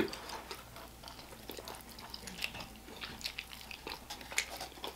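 Faint close-up mouth sounds of someone biting and chewing meat off a sauced fried chicken wing: soft scattered clicks and smacks, with a slightly louder one about four and a half seconds in.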